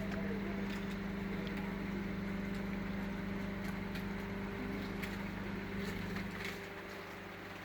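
An engine running steadily at an even pitch, with a few faint clicks over it; the engine drops somewhat quieter about six seconds in.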